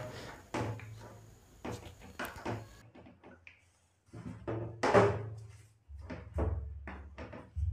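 Hollow plastic parts of a children's slide knocking and scraping against each other and the tiled floor as the slide is lifted, moved and set down, with the loudest knock about five seconds in.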